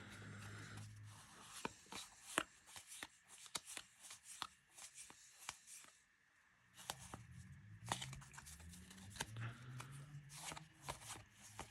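Trading cards being handled and flicked through one by one, a faint run of light clicks and taps with a short pause about six seconds in.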